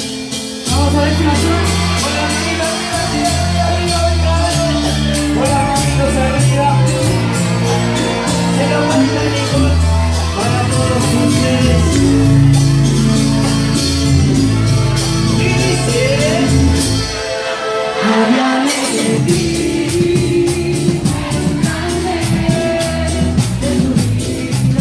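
Cumbia music played loud by a band with keyboards: a bouncing bass line and steady high percussion under a singing voice. The bass drops out briefly about three-quarters of the way through, then comes back.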